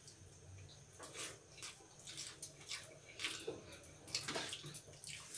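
Eating sounds: wet smacks and clicks of chewing and of rice and curry being mixed and squished by hand, irregular and faint, coming thicker in the second half.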